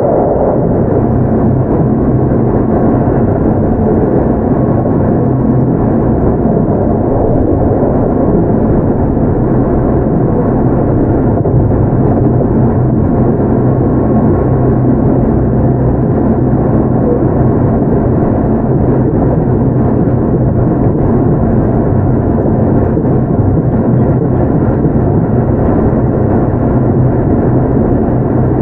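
Keio 8000 series electric train (Hitachi GTO-VVVF) running at a steady speed: a continuous rumble of wheels on rail with a steady low hum underneath.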